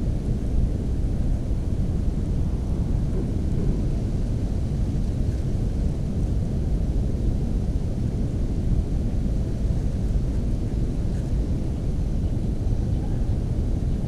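Steady low rumble of wind buffeting the camera's microphone, with no bird calls standing out.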